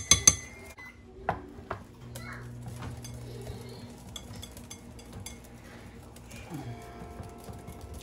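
Wire whisk and metal spoon clinking and scraping against a glass mixing bowl and a metal can while batter is beaten and pumpkin puree is spooned in. A fast run of whisk clinks stops just after the start, two sharper knocks follow, then lighter scattered clinks and scrapes.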